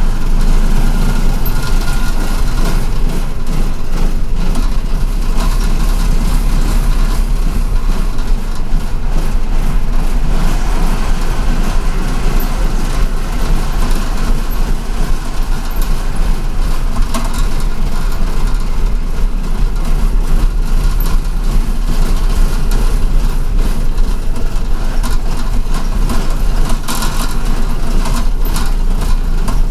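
City bus heard from inside the cabin: a steady low engine rumble with road and cabin noise, and a few faint rattles.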